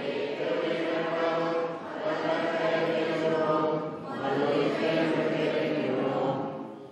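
Many voices singing a short chanted liturgical response together, in three phrases.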